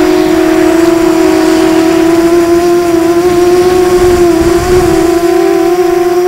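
FPV drone's electric motors and propellers whining, picked up by the onboard camera: a loud, steady tone that shifts slightly in pitch with the throttle, with a brief low rumble about four seconds in.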